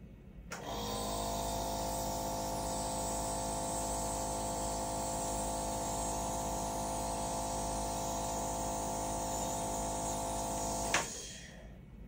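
Nebulizer running steadily, a constant hum with hiss, as it delivers a timed dose of nebulized test solution for a cough reflex challenge. It starts about half a second in and is switched off with a click near the end.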